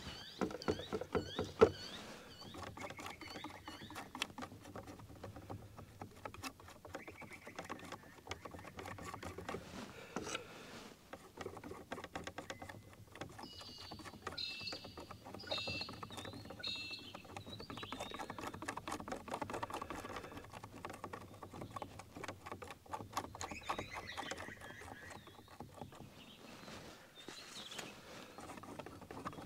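Steel palette knife scraping and dabbing thick paint across a stretched canvas: a continuous run of small scratchy clicks and rasps, with a few louder clicks about a second in.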